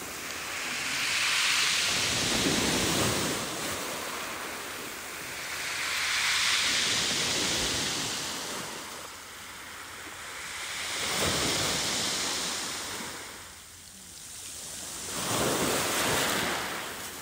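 Ocean waves washing in on a shore, four swells rising and falling about every four to five seconds.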